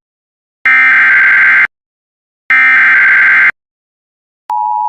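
Emergency Alert System SAME header: two buzzing digital data bursts, each about a second long and about a second apart, ending the three-burst header. About half a second before the end, the steady EAS attention tone begins.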